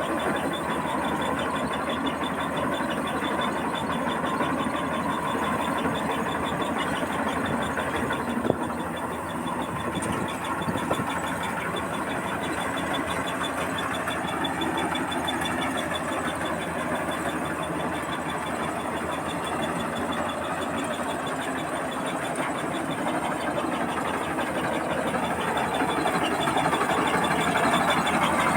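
Combine harvester running steadily, its engine and machinery making a continuous mechanical drone, with one sharp click about eight seconds in. The sound grows louder near the end.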